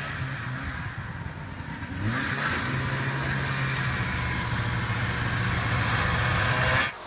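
1989 Arctic Cat Jag snowmobile's two-stroke engine runs low, revs up about two seconds in, then holds steady at higher revs as the sled drives off. The sound cuts off suddenly near the end.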